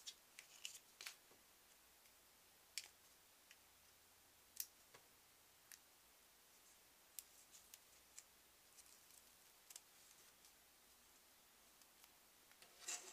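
Near silence broken by faint, scattered small clicks and crinkles of fingers peeling the paper backing off a small square of double-sided tape, with a short cluster of them near the end.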